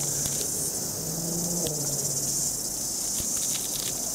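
Steady high-pitched insect chorus, with a few light clicks as the papery wasp-nest comb is handled.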